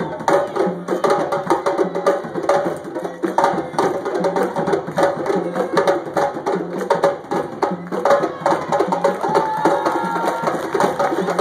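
Ensemble of African drums playing a dense, driving rhythm, with a low drum beat recurring under the faster strokes.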